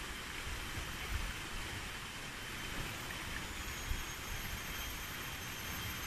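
Steady high hiss of forest ambience, with a thin continuous whine and a second, higher whine joining about halfway through, over an uneven low rumble of wind on the microphone.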